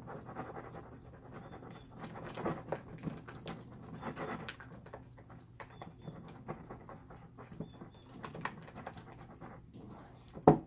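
Hands squishing and kneading a sticky glue slime mixture in a bowl: irregular wet squelching with many small crackles and pops, as the mixture is only starting to thicken. A single sharp click stands out near the end.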